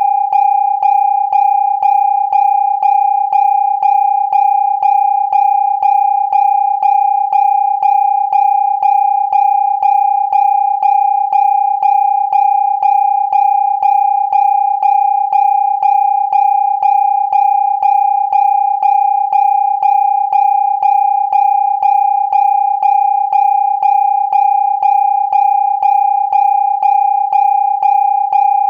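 Electronic alarm sounding a steady, single-pitched warning tone that pulses in a regular beat, about three pulses every two seconds, each starting with a slight click.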